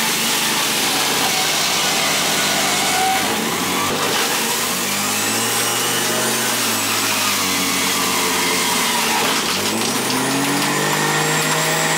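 Electric centrifugal juicer's motor running loud and steady while it shreds green vegetables and fruit. Its pitch sags and recovers a couple of times as produce is pressed down the feed chute, loading the motor.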